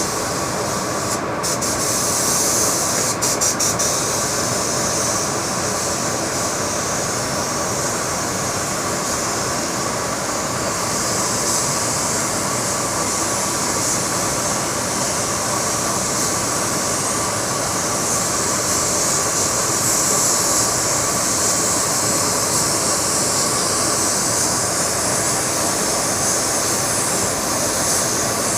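Steady hiss of compressed-air spray-painting equipment with a machine running under it and a constant thin tone. A few short clicks come in the first few seconds, and the hiss brightens a little about a third of the way in.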